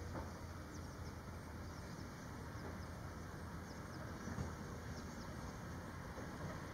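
Outdoor ambience: a steady low rumble with faint, thin, high bird chirps scattered through it.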